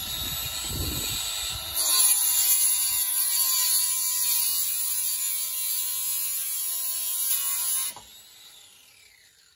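Ryobi angle grinder running with a steady high whine, its disc cutting through the steel parking-brake cable with a harsher, louder grind from about two seconds in. Near the end it is switched off and spins down in a falling whine.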